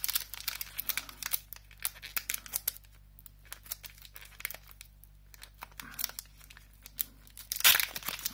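Foil wrapper of a Pokémon trading card booster pack crinkling and tearing as it is opened by hand, in quick crackles, thinning out in the middle and becoming loud and dense near the end.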